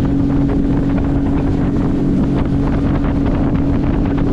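Highfield Sport 390 RIB's outboard motor running steadily at high revs near top speed, with wind buffeting the microphone and water rushing along the hull.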